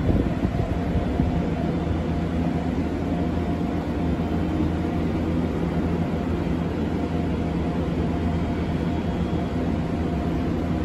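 Interior running noise of an Odakyu 8000 series electric train: a steady rumble of wheels on rails with a faint, even hum over it, heard from inside the passenger car.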